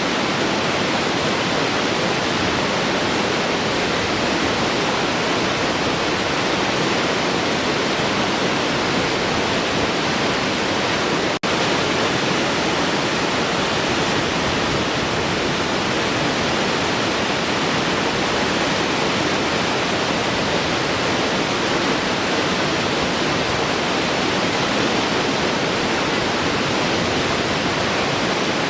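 Large waterfall pouring, a steady dense rush of falling water, broken by a split-second dropout about eleven seconds in.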